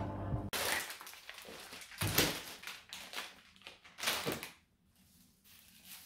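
Plastic shopping bag and food packaging crinkling and rustling as groceries are handled, in three loud short bursts and then softer rustles near the end.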